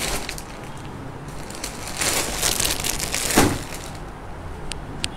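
Plastic packaging crinkling and rustling as packets of underwear are handled, loudest from about two to three and a half seconds in, with a couple of light clicks near the end.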